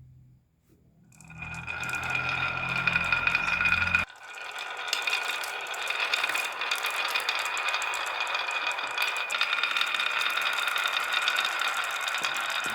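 Marbles rolling and clattering down a toy marble run track: a dense, continuous rattle of small clicks with a steady ringing tone, building up about a second in. A low hum underneath stops suddenly about four seconds in.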